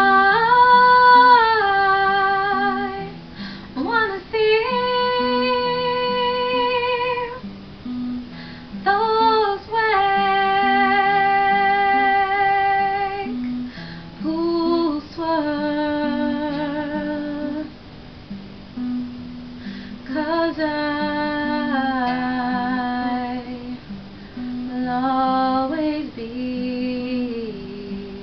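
A woman singing with her own acoustic guitar accompaniment, the voice coming in phrases of a few seconds with held notes and short pauses between them, over the steady guitar.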